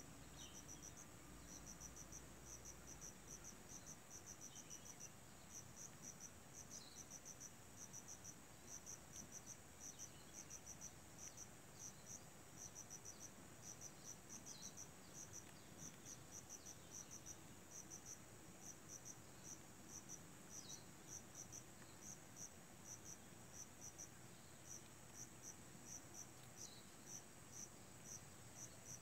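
Faint insect chirping: a steady, rapid series of short, high chirps, about three a second, over a constant high hiss.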